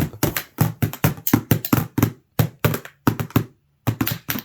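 Rapid, uneven tapping, about five taps a second, pausing briefly twice.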